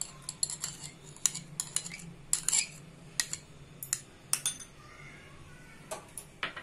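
A steel spoon clinking and scraping against glass bowls as ingredients are spooned from one bowl into another: a dozen or so sharp, irregular clinks.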